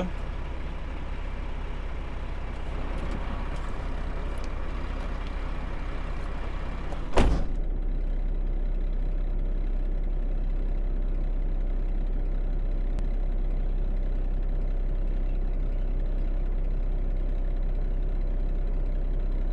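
Truck engine running with a steady low rumble, heard from inside the cab, broken once by a single sharp knock about seven seconds in.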